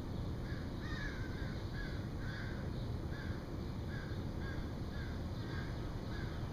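A bird calling over and over, short arched calls about two a second, over a low steady rumble.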